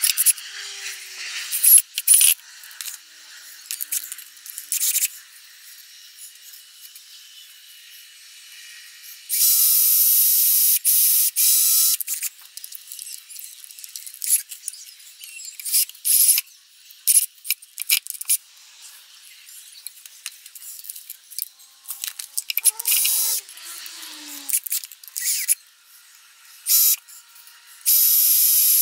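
Butane blowtorch hissing in bursts of one to three seconds, the longest about ten seconds in and another near the end, with clicks and scraping handling noises in between.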